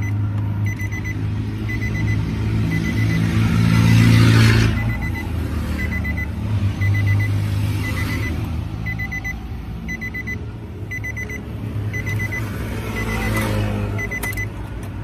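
A vehicle's electronic warning chime beeping in short high clusters, a little under twice a second, as the ignition key is turned on a Nissan Navara that will not crank. Underneath runs a steady low engine hum, and passing traffic swells up about four seconds in and again near the end.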